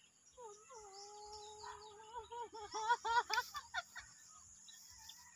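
A girl's voice: a long held squeal that breaks into laughter about two seconds in.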